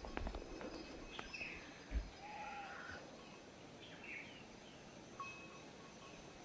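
Faint bird calls: short chirps and whistles scattered through, with a soft thump about two seconds in.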